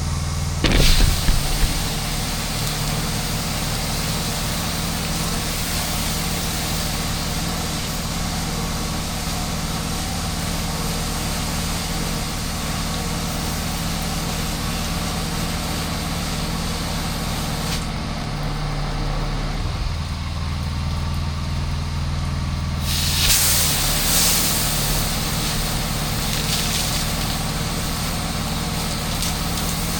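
Pressure washer engine running steadily under the hiss of water spraying from a Mo Flo soft wash system. The spray eases off for a few seconds about two-thirds through, then comes back louder.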